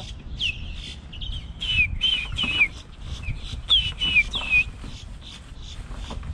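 Osprey calling: a run of short, high, whistled chirps, each slurring downward, most of them in the first four or five seconds and thinning out near the end.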